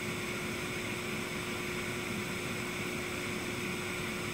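Steady whir of lab equipment cooling fans, with a constant low hum tone over an even hiss.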